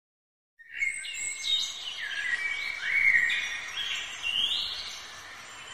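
Birds chirping, a run of short whistled notes sliding up and down over a steady background hiss, starting about half a second in.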